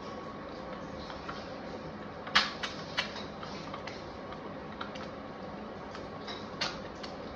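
Egg frying in oil in a non-stick pan: a steady sizzle with sharp pops and crackles, a quick cluster of them about two and a half seconds in and another single pop near the end, over a faint steady hum.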